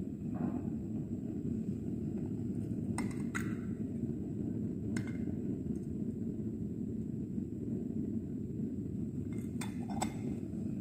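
Light glassy clinks of a glass petri dish and its lid being handled and closed: a few sharp taps around three to five seconds in and a small cluster near the end. A steady low rushing noise runs underneath.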